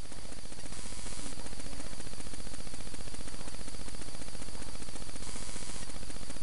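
Tecumseh single-cylinder engine of a small snowblower running steadily close by, a fast even beat, getting a little louder over the first second and then holding. It is running without its air filter.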